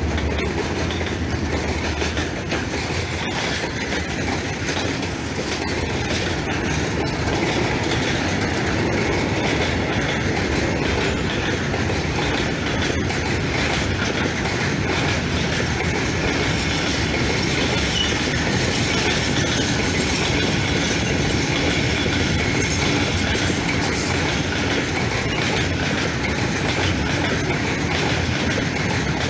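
Long, heavily loaded freight works train of ballast hopper wagons rolling past close by: a steady rumble of steel wheels on rail with a clickety-clack over the rail joints. The low hum of the diesel locomotives at its head fades in the first couple of seconds.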